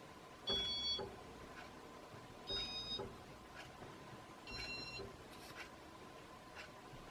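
Casablanca Panama ceiling fan's electronic control beeping in demo mode: three short beeps about two seconds apart, each a chord of several high tones at a different pitch. Faint ticks about once a second and a steady faint hum run underneath.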